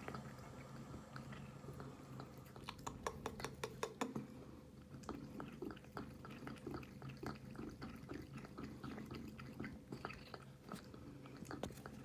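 Cat eating from a stainless steel bowl: a run of quick, irregular wet mouth clicks and chewing sounds, thickest about three to four seconds in.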